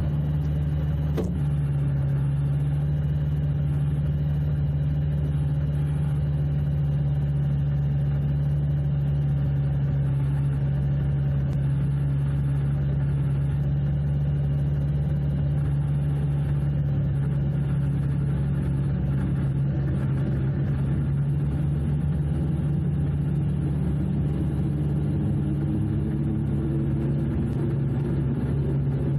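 Argon 915iS gyrocopter's Rotax 915 iS engine running steadily, heard from inside the cockpit, with a brief click about a second in. Near the end a higher tone slowly rises over the engine.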